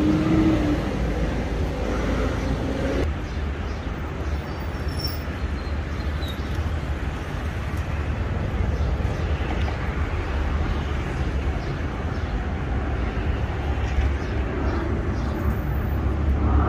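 Steady low rumble of traffic noise, with a held hum that stops about three seconds in.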